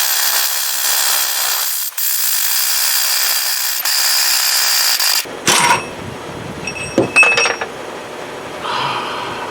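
Compressed air hissing steadily for about five seconds, with a few brief drops, as the air supply to the pneumatic tools runs out. Then a few light metallic clinks of hand tools.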